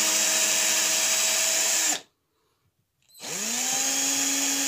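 Cordless drill with a small bit boring through a hard fishing boilie, its motor running steadily. It cuts off suddenly about two seconds in, then about a second later spins back up with a rising whine and runs on steadily.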